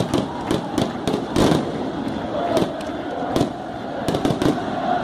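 Firecrackers going off in quick, irregular succession over the steady noise of a stadium crowd, with one heavier bang about a second and a half in.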